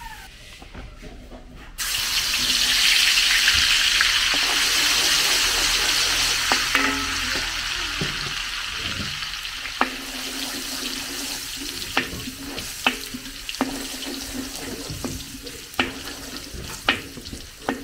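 Chopped garlic hitting hot oil in a large metal wok: a sudden loud sizzle about two seconds in that slowly dies down. A metal ladle clinks against the wok several times as the garlic is stirred.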